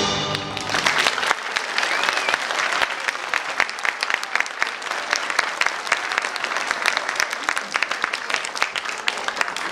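Audience applauding: dense, steady clapping from many hands. The recorded orchestral music ends within the first second.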